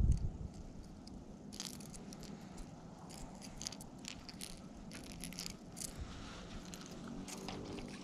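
Faint, irregular light clicks and small rattles, with a low thump right at the start.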